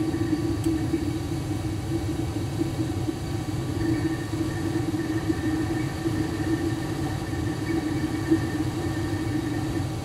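80% gas furnace running with its main burners lit: a steady rumble of the flames with a constant low hum. This is the normal run after the pilot has been proven and the main gas has come on.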